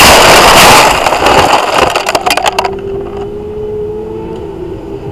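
Racing motorcycle crashing into a gravel trap: loud wind and engine noise, then gravel clattering and scattering as the bike and camera slide and tumble through the stones, stopping about three seconds in. After that a steady engine drone remains, sinking slightly in pitch.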